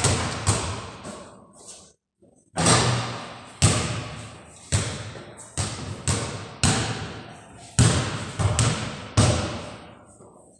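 Basketballs bouncing on a hard floor in a large, echoing room: irregular thuds about once or twice a second, each followed by a long reverberant tail. The sound drops out briefly about two seconds in.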